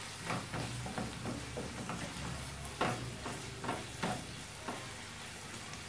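Zucchini, onion and garlic sizzling in a frying pan as a wooden spatula stirs them, with scrapes and taps of the spatula against the pan, the loudest about three seconds in. The stirring dies away near the end while the sizzle goes on.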